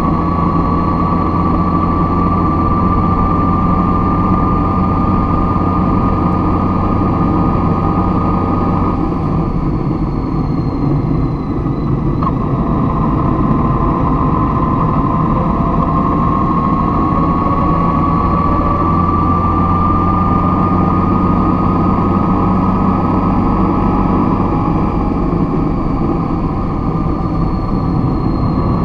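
A vehicle engine running steadily, with a whine that slowly rises and falls in pitch.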